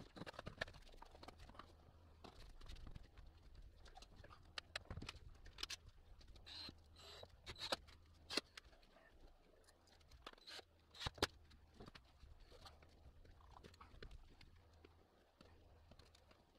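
Faint scattered clicks and knocks over a low steady hum, with a few sharper knocks around the middle.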